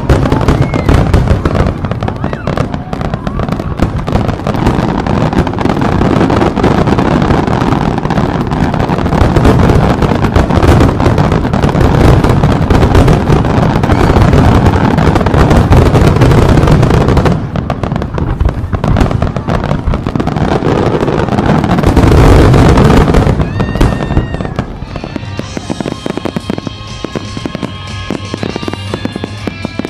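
Fireworks barrage: many aerial shells bursting and crackling one over another in a dense, continuous volley, loudest just before it stops about 24 seconds in. Music with steady sustained notes takes over from there.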